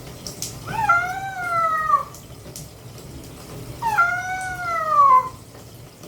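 Domestic cat meowing twice while being bathed in a tub. Both are long, drawn-out meows of about a second each, falling in pitch at the end, and they are the protest of a cat that dislikes the bath.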